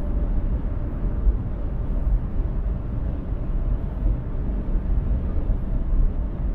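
Car driving at highway speed: a steady low rumble of tyre, road and engine noise.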